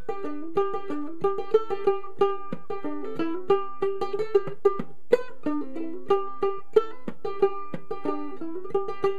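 Solo ukulele played clawhammer style, a brisk old-time fiddle tune in G: quick plucked melody notes over a steady down-picked rhythm, with sharp brushes and thumb strikes.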